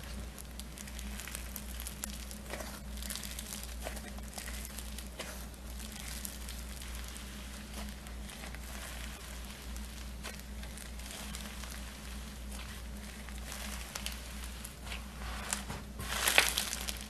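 Fluffy slime being squeezed, stretched and pulled apart by hand, giving an irregular run of soft crackles and crinkles. The crackling grows louder near the end.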